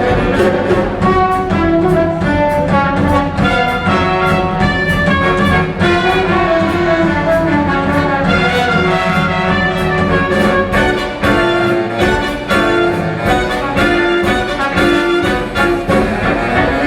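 Orchestral music, with brass and strings over a busy beat of sharp percussive accents.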